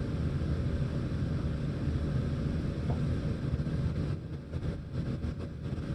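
Room exhaust fan running, a steady low rumble of air noise.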